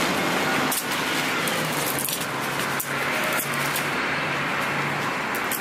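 Steady road traffic noise from cars going round a busy roundabout, with a few short clicks and rustles from gear being handled close by.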